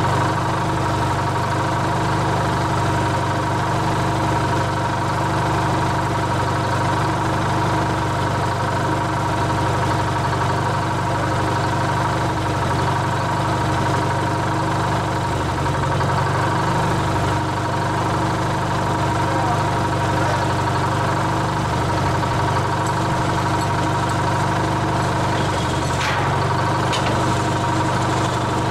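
Old crane's engine idling steadily while it lowers a load, with a couple of faint clicks near the end.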